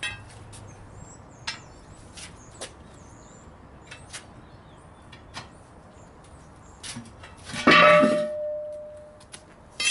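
Scattered light knocks and taps, then a loud metallic clang about three-quarters of the way through that rings on with one steady tone for about a second: steel striking steel during tire work.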